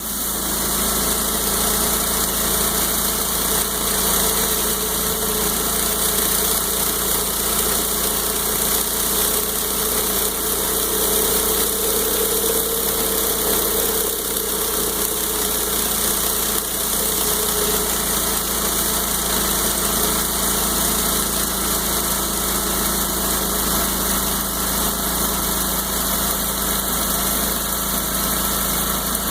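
Gas pressure washer engine running steadily under load, with the hiss of water jets from a 20-inch rotary surface cleaner spinning over concrete.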